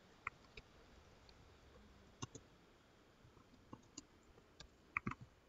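Faint computer mouse and keyboard clicks, a scattered handful of single ticks and quick pairs, with near silence between them.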